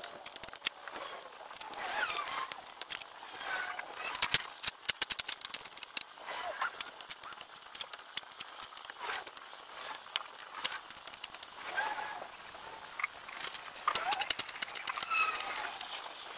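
Fast-forwarded sound of firewood being stacked: a rapid, dense clatter of clicks and knocks from split logs, heaviest about four seconds in and again near the end, with short squeaky chirp-like glides mixed in.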